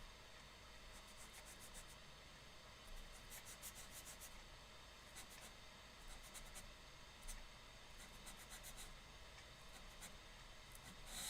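Faint scratchy strokes of writing, in short clusters of quick strokes spread through the quiet: a lecturer writing out or editing his circuit drawing.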